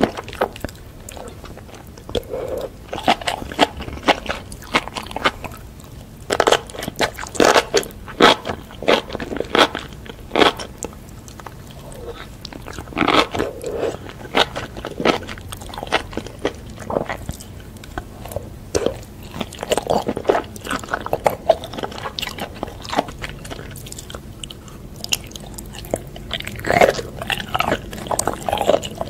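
Close-miked eating sounds: a person biting and chewing mushrooms in spicy sauce, with many short, irregular mouth clicks and crunches.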